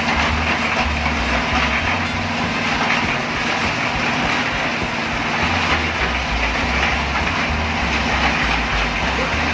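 Portable concrete mixer running steadily during a concrete pour, a continuous loud machine noise with a low engine hum.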